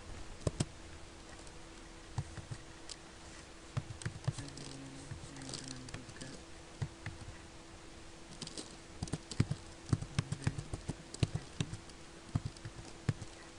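Computer keyboard typing in irregular runs of keystrokes, sparse at first and busiest in the second half, over a faint steady hum.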